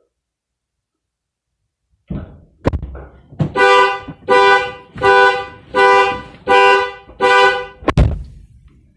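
A car alarm going off, sounding the car horn in six evenly spaced honks, a little under one and a half a second. It follows a clatter and click about two seconds in, and a sharp loud knock comes near the end.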